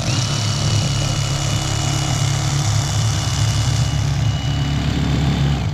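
Electric handheld fillet knife running as its reciprocating blades cut along the backbone of a striped bass: a steady motor hum with a high whine above it. The whine dips briefly at the start, and the motor shuts off and winds down at the very end.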